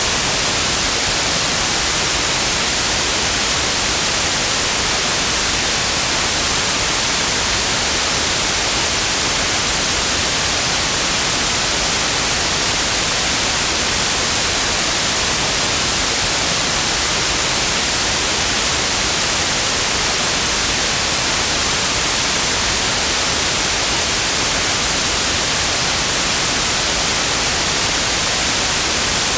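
Steady, loud synthetic white noise: an even hiss, brightest in the treble, with no change or events.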